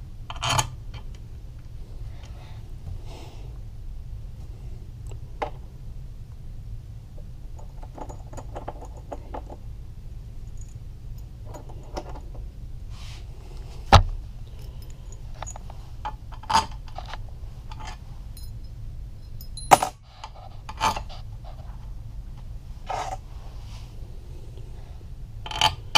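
Steel crankcase bolts clinking and jingling as they are handled and set into the engine cases, with scattered small metal clicks and two sharp metallic clacks, one about halfway through and one a few seconds later.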